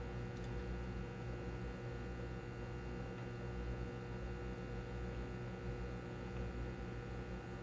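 Aquarium water pump humming steadily, with a few faint clicks in the first second and a half.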